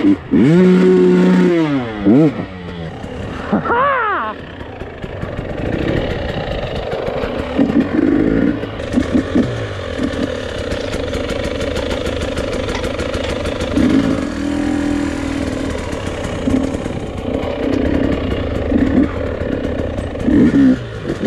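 Enduro motorcycle engine heard from the rider's seat, revving up and down under throttle with a quick rising rev about four seconds in. It then settles to a steady low-speed run with short throttle blips every few seconds.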